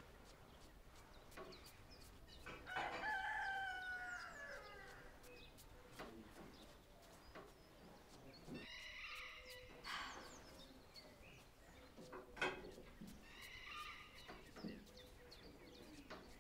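A rooster crowing, loudest about three seconds in, then calling twice more, once near the middle and once near the end.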